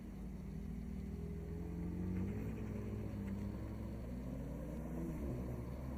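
Mercedes-AMG SLC43's twin-turbo V6 engine running during a drive, its note rising, dropping back about two seconds in, then rising and dropping again near five seconds.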